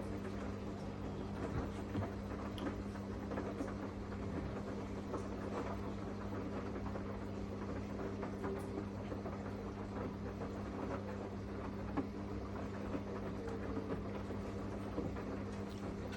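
Samsung washing machine running: a steady motor hum with faint scattered ticks.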